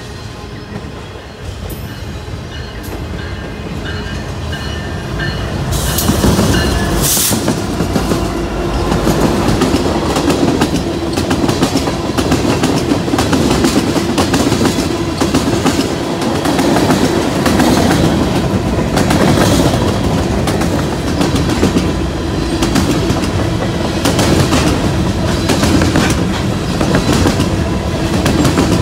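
Freight trains passing on the main line: freight cars are already rolling by when a BNSF diesel-led freight comes up and passes about six seconds in, and the sound gets much louder. A long string of tank cars, boxcars and hoppers follows, rumbling and clacking over the rail joints.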